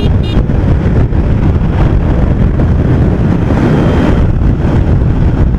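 Steady wind noise on the microphone of a motorcycle moving at highway speed, with the bike's engine and tyre noise underneath.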